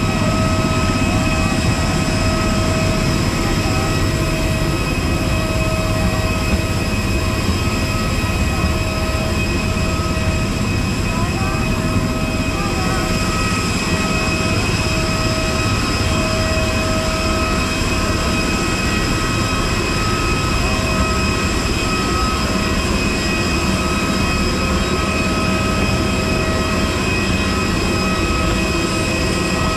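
A jet airliner's turbine running steadily, a high whine over a low rumble that does not change.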